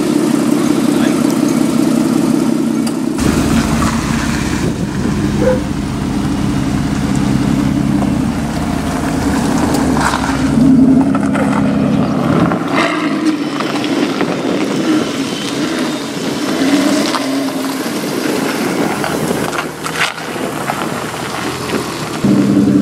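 2017 Aston Martin Vanquish S V12 engine idling steadily, then, after a few seconds, running as the car moves off at low speed, with the revs rising and falling several times and the loudest rev about halfway through.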